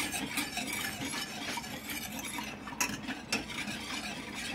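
Wire whisk stirring and scraping in a stainless steel saucepan as milk is poured in and mixed into sugar and cornstarch, with a couple of sharper clinks of the wires on the metal about three seconds in.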